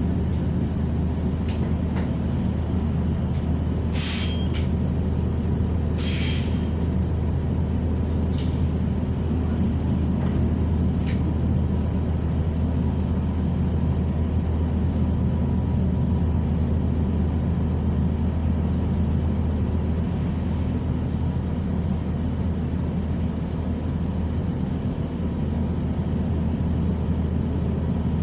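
New Flyer XN40 natural-gas city bus running, heard from inside the cabin as a steady low engine and road rumble. Two short hisses of air come about four and six seconds in.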